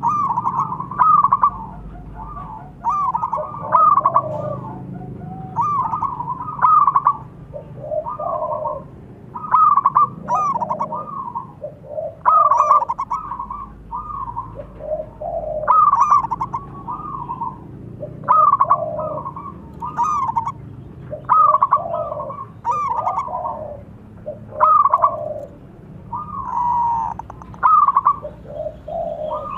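Zebra doves calling: repeated short phrases of quick, rippling coos, a higher and a lower call overlapping one another, about every second or two.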